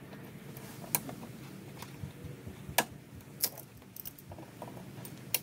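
Hand tool clicking and clinking against parts in a car's engine bay as a vacuum line is worked loose: about half a dozen sharp, irregular clicks, the loudest near the middle.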